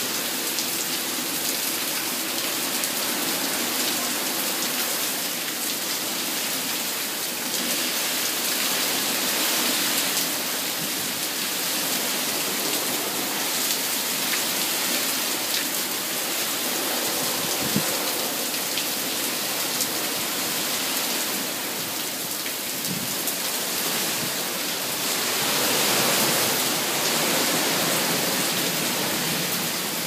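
Heavy wind-driven rain pouring down in a violent storm: a steady, dense hiss that swells louder twice, about a third of the way in and near the end.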